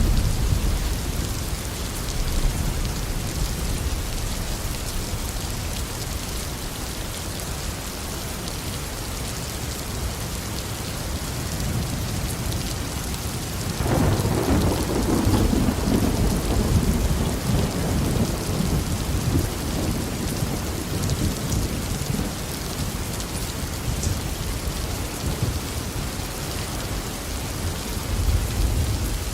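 Steady tropical rain falling, with a low thunder rumble underneath. About halfway through, a louder peal of thunder breaks and rolls on for several seconds before fading.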